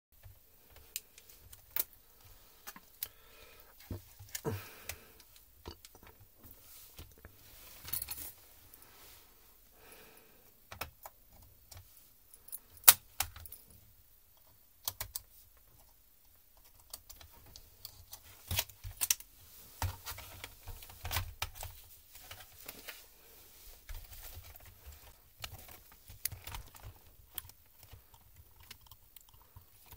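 Irregular clicks, taps and small knocks of a screwdriver and fingers working on a laptop's plastic top cover and keyboard during disassembly, with one sharper click about 13 seconds in.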